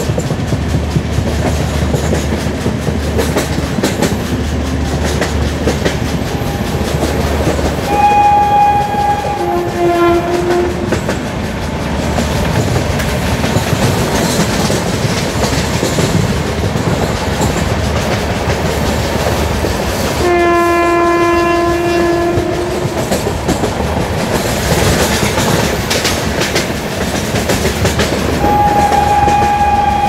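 WAG5A electric locomotive's two-tone horn sounding from a coach behind it: a high note followed by a low note about 8 seconds in, a longer low blast about 20 seconds in, and another high note starting near the end. Under it runs the steady rumble and rail clatter of the LHB coaches at speed.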